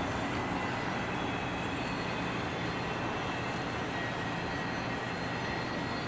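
Rear of a CSX intermodal freight train rolling away: a steady rumble of steel wheels on the rails, with a few faint thin high tones above it.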